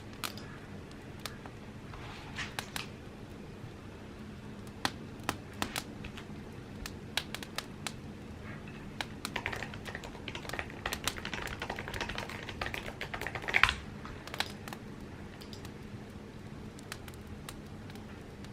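Typing on an Apple keyboard: scattered key clicks, then a fast run of typing about halfway through with one louder key strike near the end of the run, then a few last taps.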